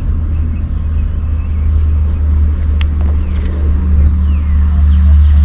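A motor vehicle engine running steadily at idle: an even, low hum with no change in pitch.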